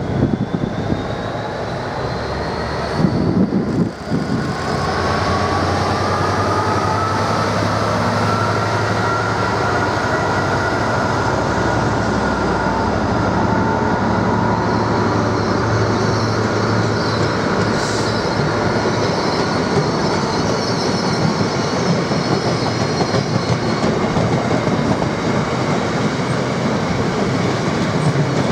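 Train running on rails with a steady rumble; a whine from its drive rises in pitch from about four seconds in as it picks up speed, then holds steady.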